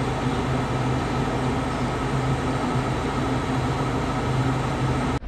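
Motorhome running steadily: a constant low engine hum under an even rushing noise, cutting off suddenly near the end.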